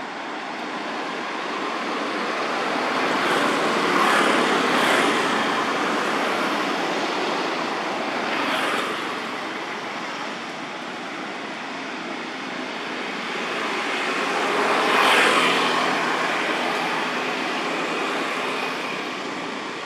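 Steady road traffic noise as vehicles pass on a nearby road, swelling twice, about four seconds in and again about fifteen seconds in.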